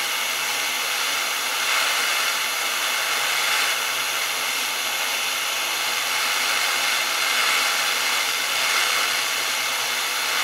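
Propane hand torch burning with a steady hiss, its flame on the tip of a steel screwdriver to bring it up to hardening heat.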